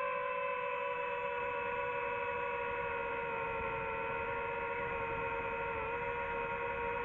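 DJI FPV drone's motors and propellers whining steadily in flight, with a small dip in pitch near six seconds.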